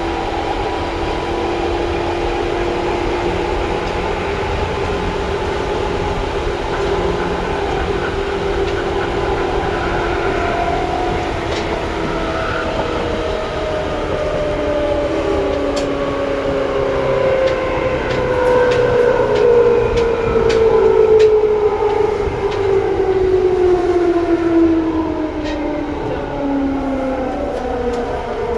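Traction motors of a Seibu 2000 series electric train under way. After steady running, the motor whine falls in pitch over the last two-thirds as the train slows, with the growl on deceleration that the series is known for, loudest past the middle. Sharp wheel clicks over rail joints come in the second half.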